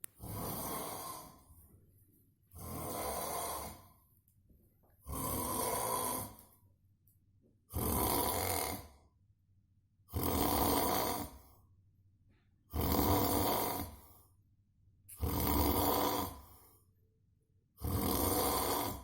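Someone asleep snoring in a steady rhythm: eight long, rasping snores, each lasting about a second and coming roughly every two and a half seconds, with quiet breathing gaps between them.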